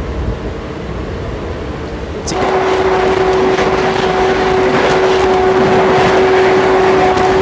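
An express train pulled by a WAP7 electric locomotive passing close by on the next track: about two seconds in its noise hits suddenly with a sharp rush of air, then a steady hum and wheel clatter as its coaches go past. Before that, the MEMU's own running noise is heard.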